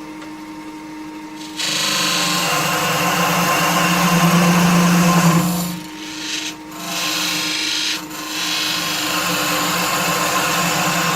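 Lathe running, and about one and a half seconds in a parting tool starts cutting into the spinning wooden blank with a loud, steady scraping hiss that eases off briefly twice about halfway through.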